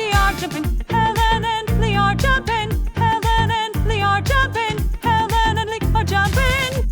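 Upbeat background music with a steady beat and a wavering, vibrato-like melody line.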